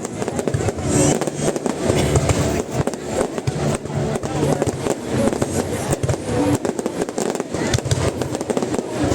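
Fireworks bursting and crackling in quick succession, with music playing underneath.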